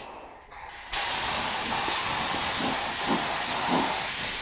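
Compressed-air paint spray gun hissing steadily as it sprays urethane paint, starting about a second in.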